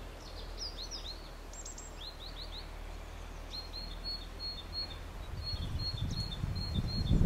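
Small songbirds calling: quick high chirps and short down-slurred notes, repeated in runs, over a low steady hum. A low rumbling noise swells near the end.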